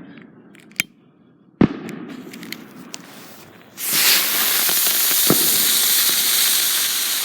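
Sharp firecracker bangs, one loud crack near the start, then about halfway through a loud, even hiss of a small ground firework burning with a spraying fizz.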